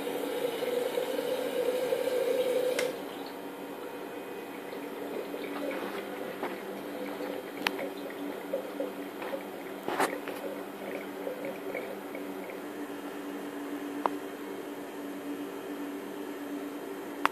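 Coolant flowing and splashing on a home-built CNC mill, over a steady machine hum. A louder part of the sound cuts off about three seconds in, after which the flow goes on more quietly with scattered small ticks and drips.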